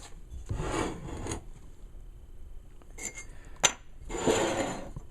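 Loose steel axe heads being handled: two short spells of metal scraping and shuffling, and a single sharp clink about three and a half seconds in.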